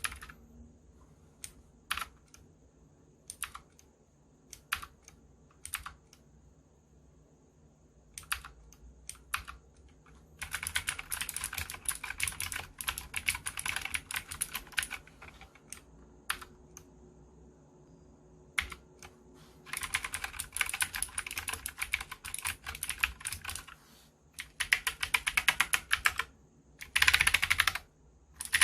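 Cox CK87 mechanical keyboard with clicky Gateron Green switches being typed on. Single keystrokes about a second apart for the first ten seconds, then several runs of fast typing, the last the loudest.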